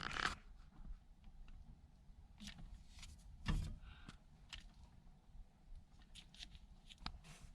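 Faint, scattered clicks and light knocks of handling, over quiet room tone; the loudest knock comes about three and a half seconds in.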